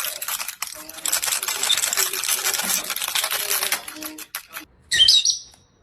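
A parrot playing with a toy: a fast, dense clattering and rattling that stops about four seconds in. About five seconds in comes one short, loud high-pitched sound.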